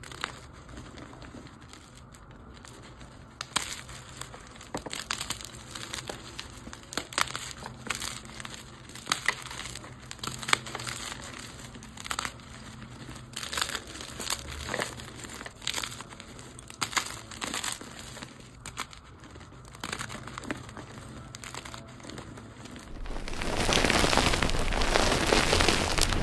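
Dyed gym chalk blocks crushed by hand, crunching and crumbling in irregular crackles. Near the end a louder, dense, continuous crumbling sets in.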